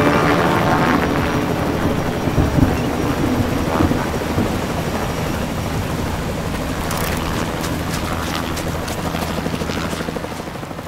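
Helicopter rotor thrumming steadily as a rescue scene's sound effect, with music fading out in the first second. The thrum dies away near the end.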